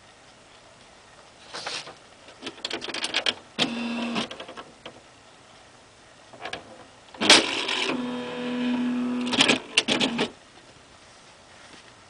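Smith Corona XD 8500 electronic typewriter printing on its own in demo mode: several bursts of rapid type strikes separated by pauses, with a steady motor hum under the two longest runs. The longest and loudest burst comes a little past halfway and lasts about three seconds.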